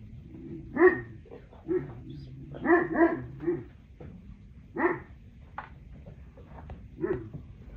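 A dog barking in short, sharp barks, about seven in all and some in quick succession, with a couple of light clicks between them.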